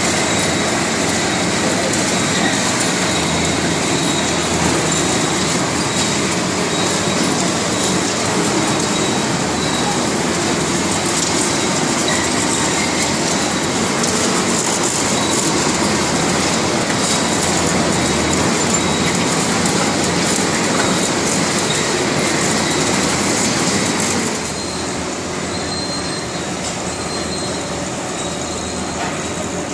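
Compost-screening machinery running: a rotating drum screen and conveyors keep up a steady din full of small clatters, with a thin high whine over it. It gets somewhat quieter near the end.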